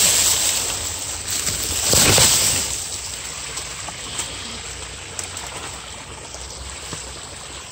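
Small forest brook running over stones, a steady rush of water, with two louder bursts of noise near the start and about two seconds in.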